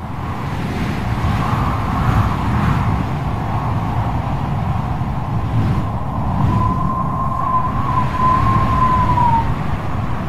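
Strong wind buffeting the microphone: a loud, steady rumble. A thin wavering whistle rises over it for a few seconds in the second half.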